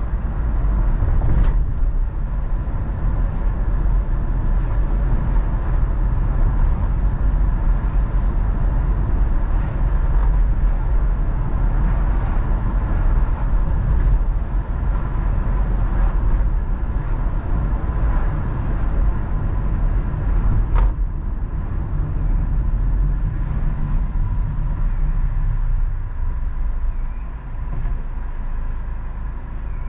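A car driving, with a steady low rumble of road and engine noise. There are two sharp clicks, and the rumble eases a little near the end.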